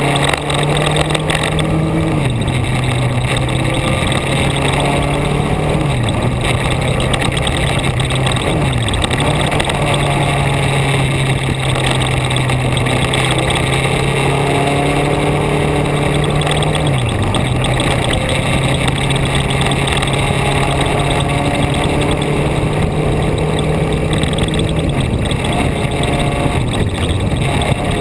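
Engine of a vehicle being driven on a winding mountain road, a steady drone over road and wind noise. The engine note dips briefly and comes back several times, as with gear changes or lifting off the throttle.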